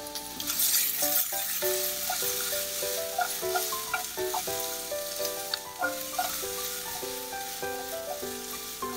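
Sliced sweet peppers sizzling in hot butter in a steel frying pan as they are turned with tongs and tossed. A background melody of short notes plays throughout.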